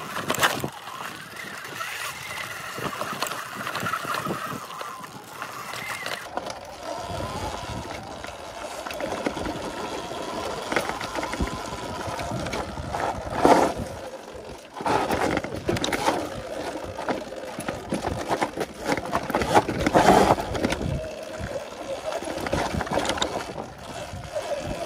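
Segway X260 electric dirt bike ridden over a rough dirt trail: steady riding noise with rattles and knocks from the bike jolting over bumps. The loudest knocks come about 13 and 20 seconds in.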